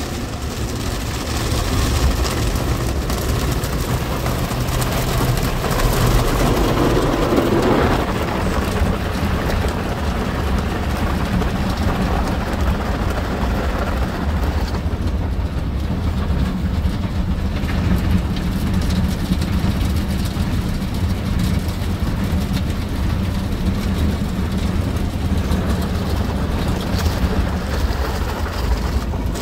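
Ryko SoftGloss Maxx 5 soft-cloth automatic car wash heard from inside the car: water spray and cloth brushes washing over the body and windows, over a steady low hum of the wash machinery. The washing swells louder about six to eight seconds in.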